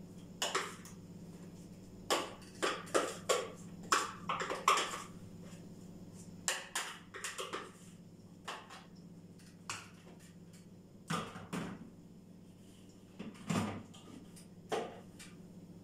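Irregular clicks and knocks of kitchenware being handled and set down, some in quick clusters, as a food processor's bowl and lid are put together on the counter, over a steady low hum.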